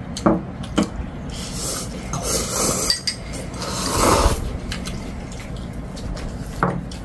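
Chopsticks and spoons clicking against ceramic bowls, with slurping of food and soup from a bowl, loudest about four seconds in.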